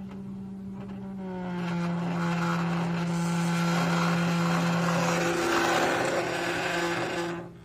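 Panasonic OEM under-seat subwoofer, driven by a signal generator, plays a steady low sine tone that drops slightly in pitch about a second in. As the level rises, a buzzing rattle builds over the tone, caused by the unmounted speaker vibrating in its plastic enclosure, and the sound cuts off sharply near the end.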